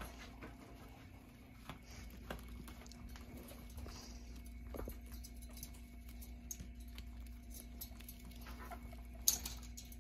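Guinea pigs moving about their pen: scattered light pattering and rustling over a steady low hum. One sharper click comes near the end.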